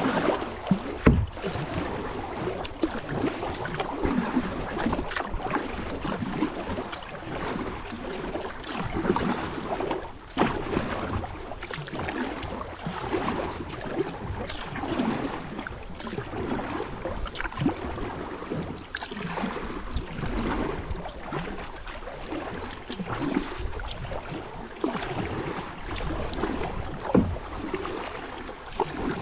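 Kayak being paddled on a river: paddle blades dipping and splashing and water lapping at the hull, with an occasional sharp knock.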